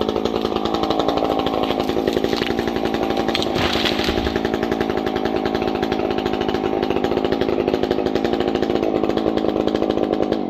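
Husqvarna 350 two-stroke chainsaw running steadily at high revs through a felling cut, then cutting off abruptly at the very end.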